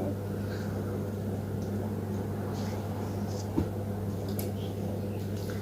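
Steady low background hum, as from a household appliance or mains hum, with a soft tap about three and a half seconds in.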